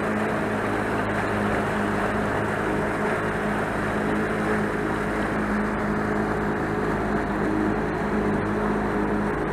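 Motorboat engine running at a steady speed, with a constant rush of wind and water.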